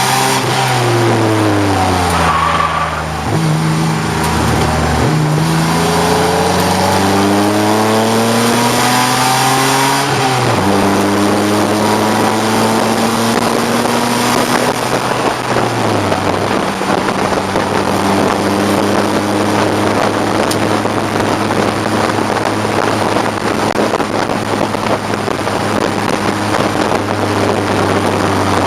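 1989 BMW 535i race car's engine running hard on track. The revs fall over the first few seconds and then climb steadily. They drop sharply about ten seconds in and again about sixteen seconds in as it shifts up, then hold fairly steady under heavy wind and road noise.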